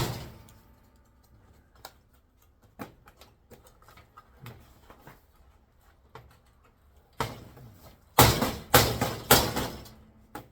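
LCD TV being taken apart by hand: a sharp bang right at the start, scattered small clicks, then a loud clatter of TV parts being handled and shifted about eight seconds in.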